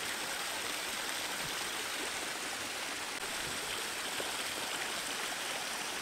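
Small waterfall spilling over a sandstone ledge into a rock pool: steady splashing of falling water.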